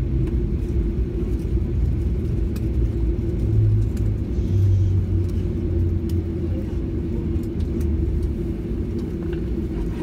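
Cabin noise of a Boeing 737 airliner rolling out on the runway just after landing: a steady low rumble of engines and wheels, with a steady hum, swelling briefly a few seconds in.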